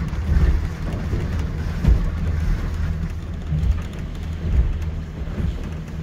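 A boat's motor running steadily under way, with wind and water noise rumbling on the microphone.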